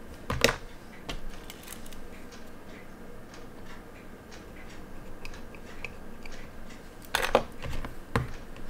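Small clicks and taps of watchmaker's tweezers and fingers working on a tiny quartz watch movement in a metal movement holder, with a few louder clicks near the end.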